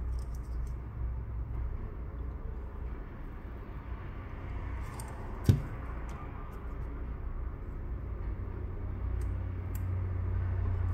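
Quiet handling of a thin plastic pry tool and a phone's glass back cover held in a suction-cup opener, over a low steady hum, with one sharp click about halfway through.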